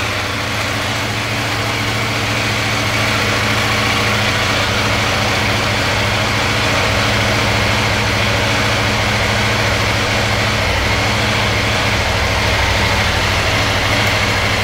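CFMOTO Ibex 800T (800MT) motorcycle's parallel-twin engine idling steadily, freshly started.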